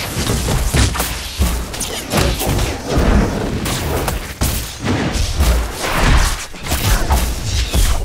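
Designed magic-spell sound effects for a wand duel: a rapid series of blasts, booms and impacts with a heavy low rumble, coming one after another about once or twice a second.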